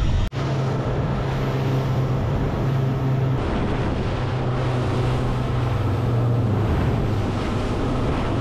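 A fishing boat's engine running at a steady, even hum, with wind buffeting the microphone and sea noise around it.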